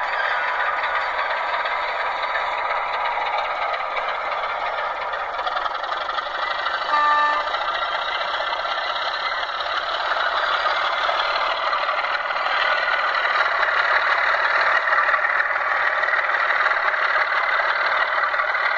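Model Class 25 diesel locomotive's Digitrains sound chip playing its diesel engine sound through the model's small speaker, thin and without bass. The engine grows louder in the second half. A short horn note sounds about seven seconds in.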